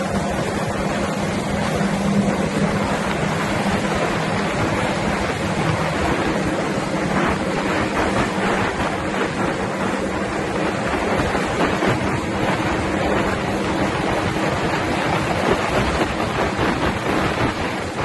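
Small boat under way with its motor trimmed all the way down, running at a steady speed: a steady motor drone, clearest in the first few seconds, under a constant rush of wind on the microphone and water along the hull.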